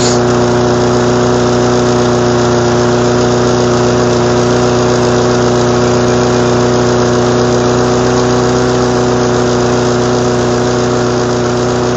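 Briggs & Stratton single-cylinder engine on a Yard Machines walk-behind mower running steadily at a constant speed. It has just been brought back to life after having had water in it.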